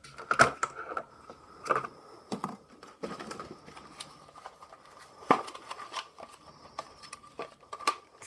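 Scattered clicks, small knocks and light crinkling from objects being handled, over a faint steady high whine.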